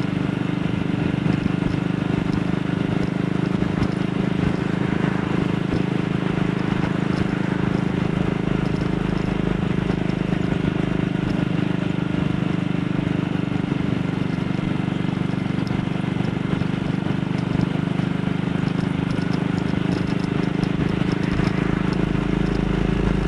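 AJS Model 8 motorcycle's single-cylinder four-stroke engine running at a steady pace while riding, with wind and road noise.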